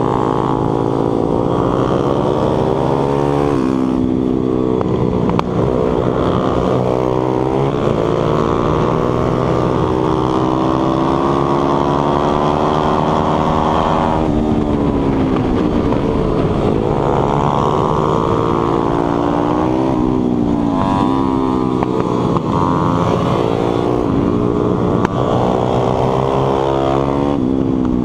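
Stomp 140 pit bike's single-cylinder four-stroke engine at race pace, heard from on board: the revs climb through the gears and drop sharply again and again as it brakes and shifts down for corners.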